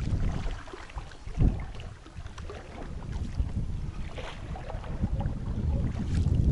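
Wind rumbling on the microphone aboard a small boat crossing a river, with faint water sounds and no engine.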